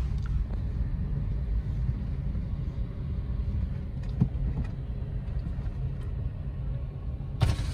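Steady low rumble of engine and road noise heard from inside the cabin of a Suzuki Ignis hatchback, with one short knock about four seconds in.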